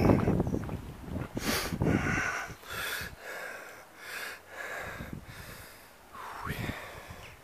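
A person breathing hard and audibly close to the microphone, with short breaths in and out repeating about once or twice a second. A low wind rumble on the microphone fades out over the first two seconds.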